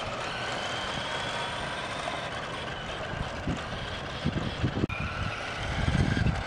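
Small electric drive motor of a toy remote-control pickup truck running as it is driven, a faint whine that drifts up and down in pitch. There is low rumbling on the microphone over the last couple of seconds.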